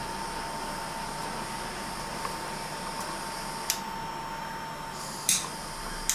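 Handheld food smoking gun's small fan motor running with a steady whine while hickory chips are lit in its bowl, pushing smoke down the hose. Three short sharp clicks or hisses come in the second half, and the whine stops right at the end.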